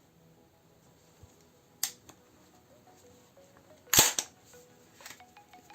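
Sharp metal clacks from handling the M203MT airsoft grenade launcher: one a little under two seconds in, a louder double clack about four seconds in, and another at the very end, over faint background music.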